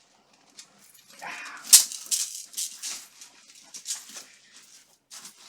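Steel armour being handled, with sharp metallic clicks and rattles. The loudest click comes just under two seconds in. A short rough sound a little over a second in comes just before it.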